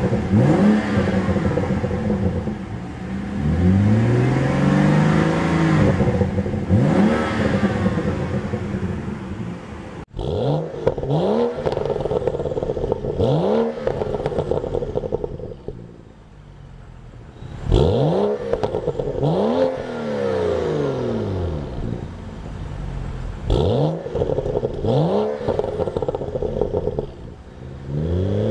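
2011 BMW 335i turbocharged inline-six revved repeatedly in park, the pitch rising and falling with each blip of the throttle and one rev held for a couple of seconds. For about the first ten seconds it is heard from inside the cabin, then from behind the car at the dual sport exhaust tips.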